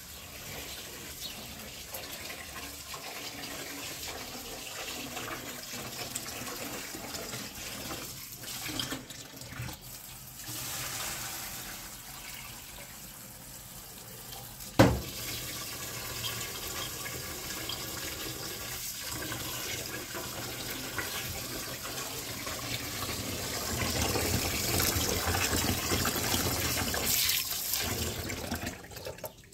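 Tap water running and splashing into a metal kitchen sink while dishes and a pot are washed by hand, with one sharp knock about halfway through. The water runs louder near the end as it pours into the pot.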